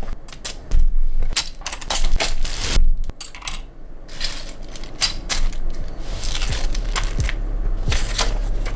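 Loose plastic keycaps and kit accessories being handled and set down: an irregular run of sharp clicks and clatters.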